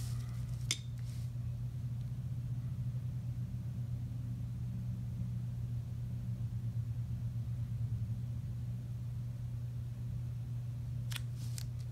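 Steady low background hum, with a short click about a second in and a few quick clicks near the end.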